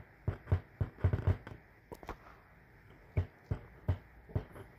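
A woofer popping and thumping as wires from a 1.5-volt AAA battery are tapped on and off its terminals, each contact kicking the cone in or out. It is a close run of pops for about two seconds, then a few spaced ones. This is the battery test for speaker polarity.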